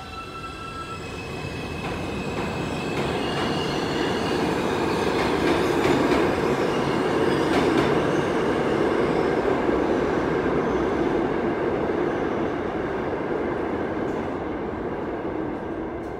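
New York City subway train running past through the station. A whine steps up in pitch over the first few seconds, and the rumble of wheels on rail builds to its loudest about halfway through, then fades as the train leaves.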